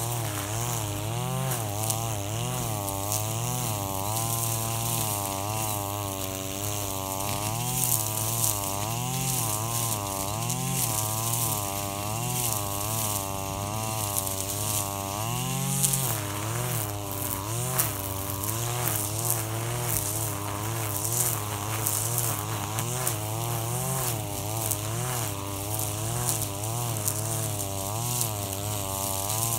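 KAAZ URP260AL-TB26 brush cutter's 25cc two-stroke engine running at cutting speed, its pitch rising and falling about once a second as the blade works through grass, with many sharp ticks over the top.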